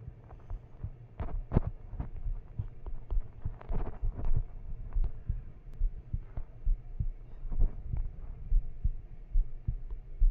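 Irregular low thuds and light knocks, several a second, like handling noise.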